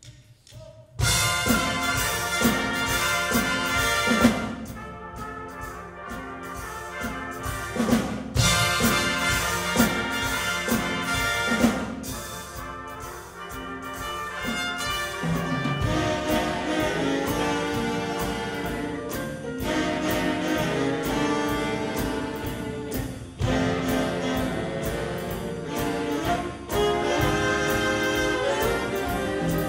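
Big band jazz ensemble of saxophones, trumpets, trombones, piano, bass and drums starts playing about a second in, the full horn section sounding together over the rhythm section.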